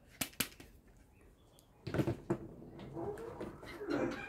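Two sharp plastic clicks in quick succession from a toy revolver's trigger, then handling rustle, and a rooster starting to crow in the background near the end.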